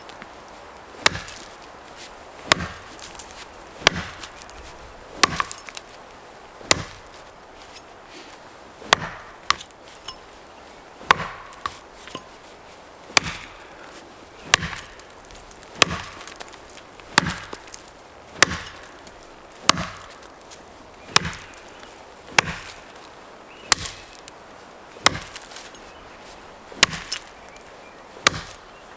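Axe blows chopping into a pine trunk, steady and even at about one blow every second and a half, as the face cut is chopped into the tree.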